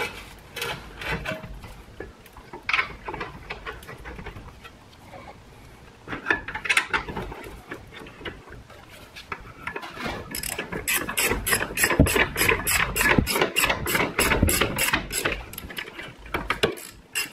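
Metal knocks and scrapes as a rear brake caliper bracket with pads is fitted over the rotor. About ten seconds in, a socket ratchet starts clicking fast and evenly, about four to five clicks a second, as the bracket bolts are run in.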